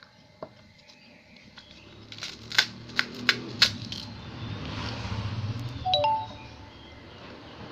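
Eating noises: about four sharp crisp cracks in quick succession, then rustling and a short ringing clink, as of something touching a plate.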